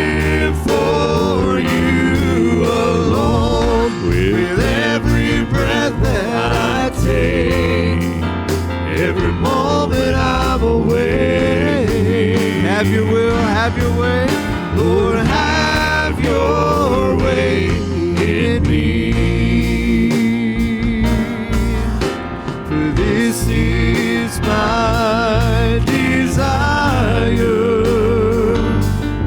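Live worship music: a band playing with sung, drawn-out vocal lines.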